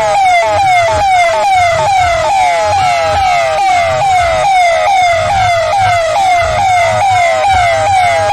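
Police siren in a fast yelp, its pitch sweeping over and over at about three cycles a second. A second, steadier siren tone joins about two seconds in and rises slowly in pitch.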